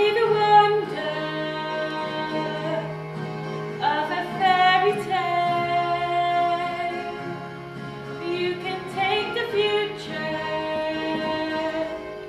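A woman singing a musical number over instrumental accompaniment, holding long notes, with a steady low bass line underneath.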